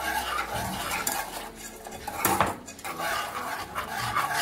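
Wire whisk stirring hot milk with basundi premix in a non-stick saucepan: a quick, irregular rattle and scrape of the wire loops against the pan's sides and base. It eases for a moment about a second and a half in, then picks up again with a sharper clink. The mix is stirred constantly so the cornflour in the premix does not stick to the pan.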